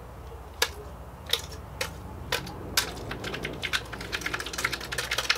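Plastic sour cream tub clicking and crackling as it is handled and tipped over a slow cooker to get the sour cream out: a few separate sharp clicks about half a second apart, then a quicker irregular run of clicks in the last two seconds.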